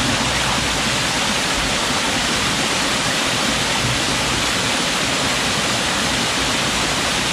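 Small mountain-creek waterfall cascading over boulders into a rock pool: a steady, even rush of water.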